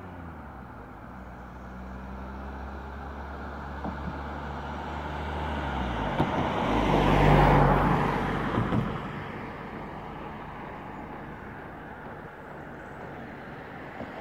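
A road vehicle passing close by: a low engine hum and tyre noise build up, are loudest about seven seconds in, then fade away.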